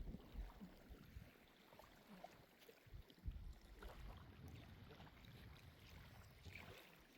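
Near silence: faint water lapping at the shore, with a few soft low thumps.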